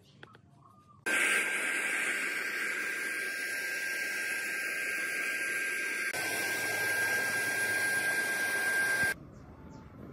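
Compressed-air paint spray gun hissing steadily while spraying white paint onto sewing machine parts, with a thin steady whistle in the hiss. It starts abruptly about a second in, has a brief join about six seconds in, and stops abruptly about nine seconds in.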